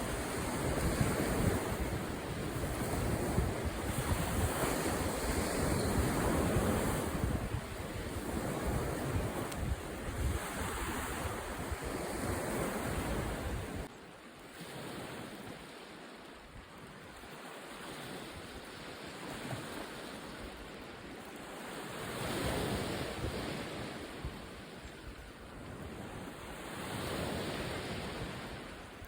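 Wind buffeting the microphone over the wash of sea waves. The heavy wind rumble drops off suddenly about halfway through, leaving waves swelling and receding every few seconds.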